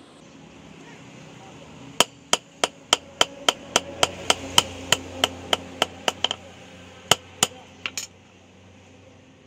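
Hand hammer striking a steel knife blade, forged from a bearing race, on a steel post anvil: a run of about twenty ringing blows at roughly three a second, then a few more near the end. A steady low hum runs underneath.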